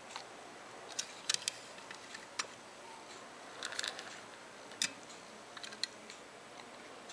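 Die-cast metal toy cars handled and set down on a hard glossy tabletop: an irregular scatter of sharp clicks and taps, several in quick succession about a second in and again near the middle.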